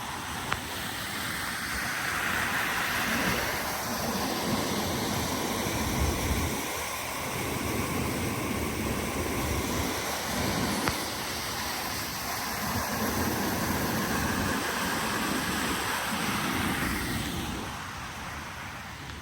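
Steady rushing noise of water, with irregular low gusts of wind buffeting the microphone.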